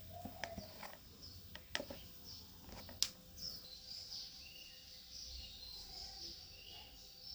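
Birds chirping faintly in the background, with a few sharp clicks, the loudest about three seconds in.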